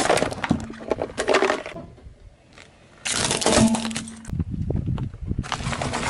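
Car tyre rolling over and crushing objects in three short bursts of crunching and crackling: a metal oil tin buckling with metallic crinkles, then a plastic toy car cracking, then a cardboard egg carton being flattened near the end.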